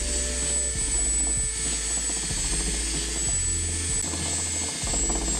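Cordless drill running with a steady high whine as its bit bores and widens a hole in the side of a plastic basin, the load changing a couple of times as the bit is worked around the hole.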